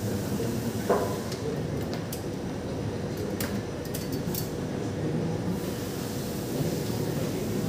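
Steady room rumble with a faint constant hum, a single knock about a second in and a few light clicks, like pens and papers at desks.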